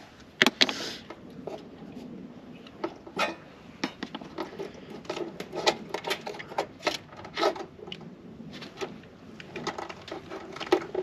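Irregular metallic clicks, taps and clinks as a flared copper LP gas line and its flare nut are handled and fitted onto a gas fitting by hand.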